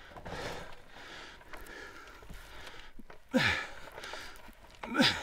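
A man breathing, then two short vocal grunts or exhaled sighs that drop sharply in pitch, about three and five seconds in.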